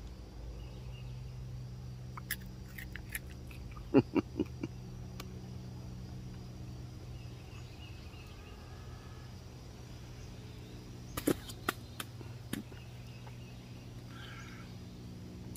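Chewing close to the microphone: short crunching clicks in three clusters as a Japanese beetle's hard shell is bitten through, over a steady low hum.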